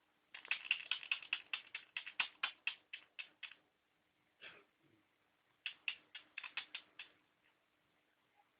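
Small pet parrot sneezing: two quick runs of short, sharp sneezes at about six a second, with a single one between them. The owner wonders whether the sneezing comes from molting.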